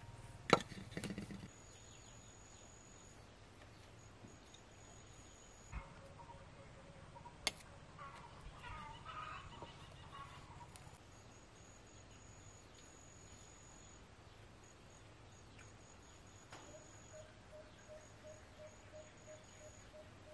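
Faint rural outdoor ambience. An insect trills high and thin in broken runs, and there is a brief burst of bird chirping in the middle. Near the end a low call repeats about three times a second. A sharp knock about half a second in is the loudest sound.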